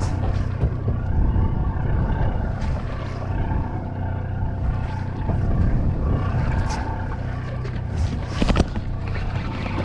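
Party boat's engine running with a steady low hum, under wind and water noise, with a few light knocks or clicks near the end.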